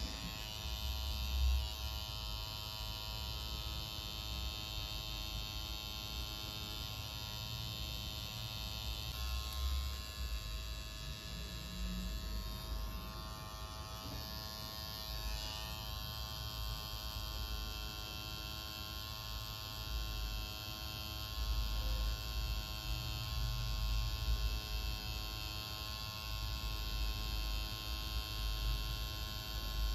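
Tattoo machine buzzing steadily as its needle works ink into skin.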